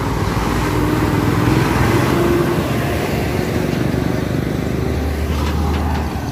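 A Volvo dump truck's diesel engine and tyres passing close by on a rough road, loudest about two seconds in, then easing off as it drives away.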